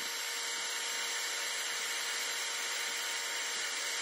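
Hair dryer running steadily: a thin, even hiss with faint steady tones, heard without its low end.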